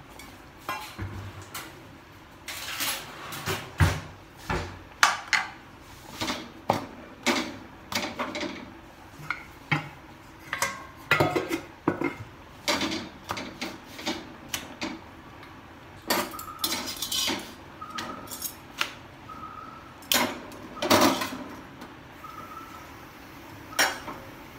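Steel kitchen utensils and dishes clinking and clattering as they are handled: a long run of separate knocks and clanks, with a few short ringing notes in the second half.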